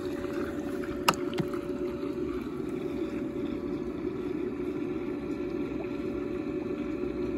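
Pool pump running steadily: a constant motor hum with a thin whine over it. A single sharp click about a second in.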